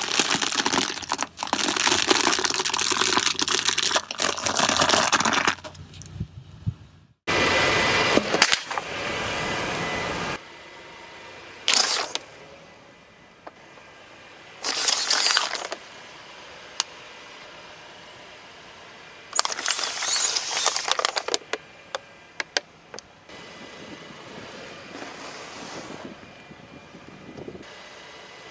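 Objects crunching and cracking as they are crushed under a car's tyres, in several separate bursts of crackling, with a quieter steady background between them.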